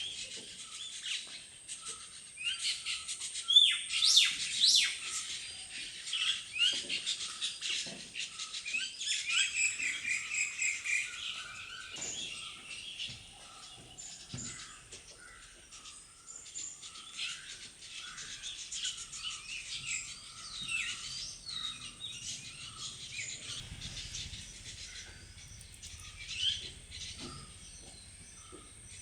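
Many birds chirping and calling in quick, overlapping high chirps, busiest and loudest in the first ten seconds or so, over a steady high-pitched tone.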